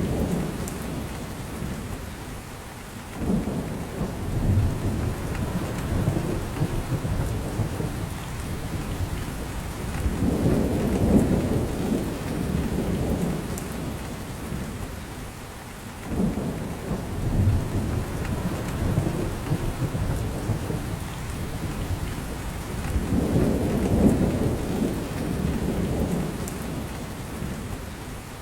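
Steady rain falling in a spruce forest, with drops falling from the branches. Low rumbling swells build and fade every several seconds.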